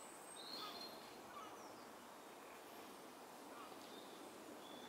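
Near silence: faint outdoor ambience with a few faint, brief bird chirps.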